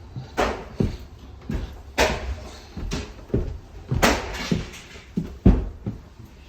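Interior demolition work: about a dozen knocks and bangs at uneven spacing as material is torn out and debris hits the floor. The loudest bang comes about five and a half seconds in.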